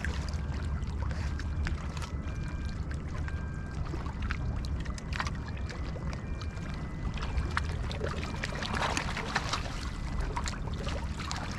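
Wind rumbling on the microphone over small waves lapping and sloshing against a stony shore. Hands work in the shallows, with louder splashing from about eight seconds in as a bass is released into the water.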